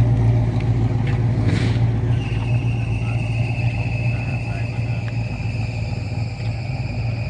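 A motor vehicle's engine running steadily with a deep, even hum. A thin, steady high-pitched whine comes in about two seconds in and holds.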